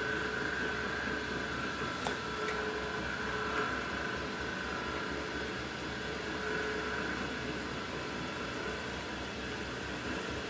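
Tormach CNC lathe turning an aluminium bar: steady machine noise with a held whine, and a couple of sharp clicks about two seconds in.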